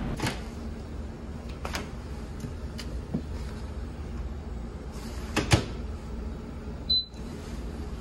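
Commercial microwave door and a plastic bento tray being handled, a series of clicks and knocks with the door shutting in a sharp clack about five and a half seconds in. A short high beep from the microwave's keypad follows about a second and a half later as the oven is started. Underneath runs a steady low hum from the ferry.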